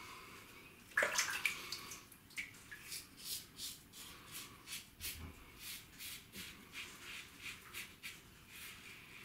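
Double-edge safety razor (a 1961 Gillette Adjustable) scraping through lathered stubble in short, quick strokes, about three a second. A brief louder splash of water comes about a second in.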